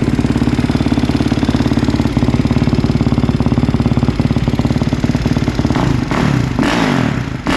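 Kawasaki KX450 motocross bike's single-cylinder four-stroke engine, fitted with a Pro Circuit exhaust, idling with a steady even pulse, with a couple of short throttle blips near the end.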